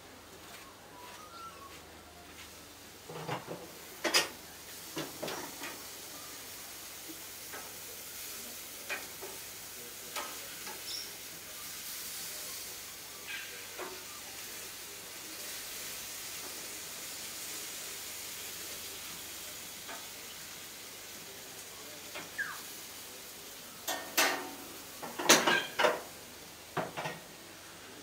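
Two rainbow lorikeets feeding, making a few short, sharp sounds over a steady hiss, with the loudest cluster of them near the end.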